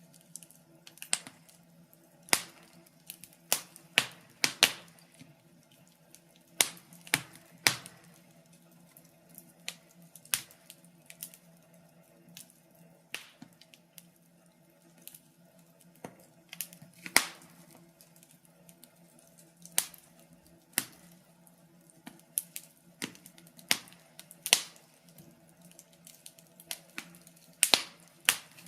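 Wood fire in a fireplace crackling: sharp, irregular pops and snaps, about one or two a second, over a faint steady low hum.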